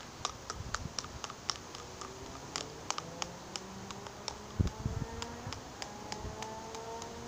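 First raindrops ticking sharply and irregularly, a few a second, on the hard plastic surface near the microphone, with two soft knocks about halfway through.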